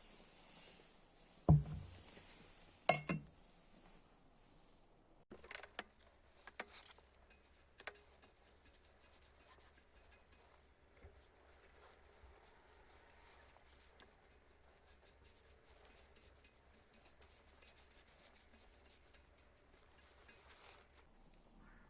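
Two sharp knocks about a second and a half apart, the second one doubled, then a few seconds later a run of lighter clicks and clinks followed by faint scattered handling noise.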